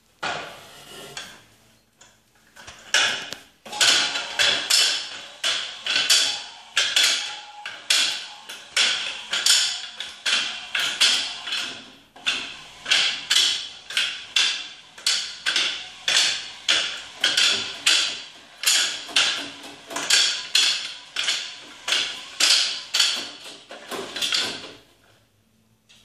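Electric stair-climbing hand truck carrying a gas cylinder on stairs: its motor-driven tri-star wheel clusters clack and clatter in a steady rhythm of about three strokes every two seconds. The rhythm starts about three seconds in and stops shortly before the end.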